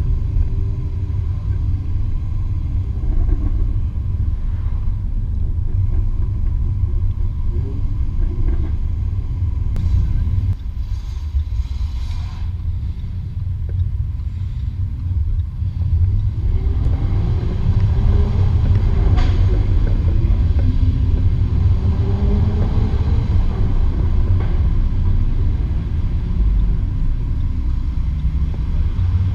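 Jaguar F-Type R's supercharged 5.0-litre V8 running under way, a deep exhaust rumble whose pitch rises and falls with the throttle. It eases off for a few seconds about a third of the way in, then runs louder again from about halfway on.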